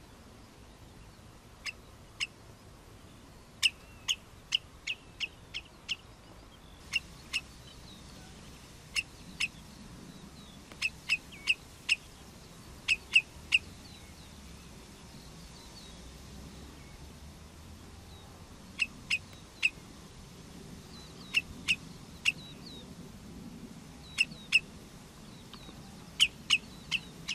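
Common redshank giving its alarm call: short, sharp, high notes repeated in runs of two to six, with pauses between the runs. It is the alarm a parent redshank gives to warn its chicks.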